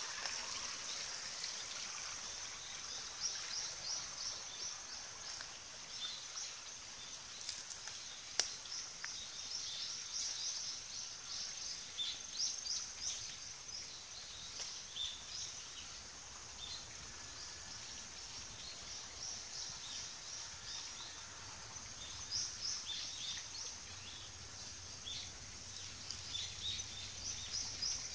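Continuous high-pitched chirping from small animals, many short chirps coming in quick runs, with one sharp click about eight seconds in.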